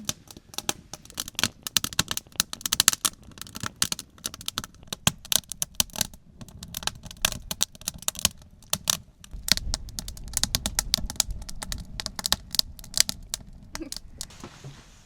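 Wood fire crackling and popping in quick, irregular snaps, with a low rumble for a few seconds midway.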